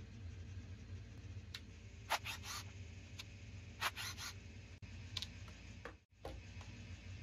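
Handling noise of a Traxxas Stampede RC truck being picked up and turned over on a wooden workbench: a scatter of light plastic clicks and knocks over a steady low hum.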